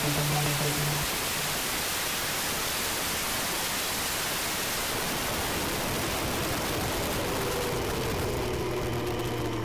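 Steady rush of wind over the microphone on a moving 50cc two-stroke scooter, its engine faintly audible underneath, the engine tones showing through a little more near the end.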